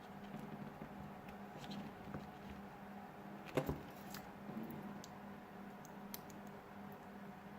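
Small clicks and taps of hands and tools handling a smartphone's parts during a battery replacement, with one sharper click about three and a half seconds in, over a steady low hum.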